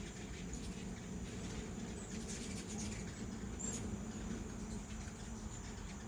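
Steady outdoor chorus of crickets trilling high and unbroken, with scattered short, high chirps from hummingbirds and a faint steady low hum underneath.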